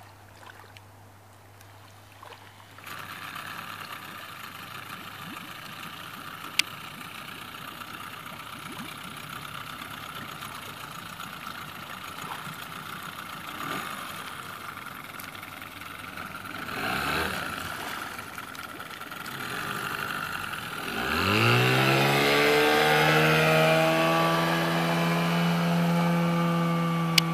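2001 Johnson 9.9 hp tiller outboard running steadily at low throttle, then opened up: about 21 s in its pitch climbs sharply and it holds a loud, steady, high-revving tone as the boat runs at speed.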